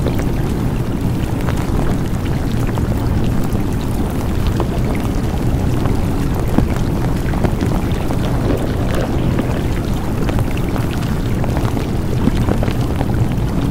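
A steady, loud rushing noise, heaviest in the bass, with scattered small crackles throughout.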